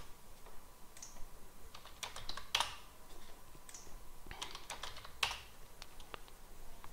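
Computer keyboard typing: scattered single keystrokes and short runs of them, with pauses between.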